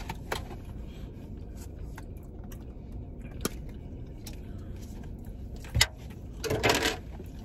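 Quiet car-cabin hum with scattered small clicks from handling a plastic takeout container and fork while eating. A sharper click comes near six seconds in, then a brief rustling scuffle about a second before the end.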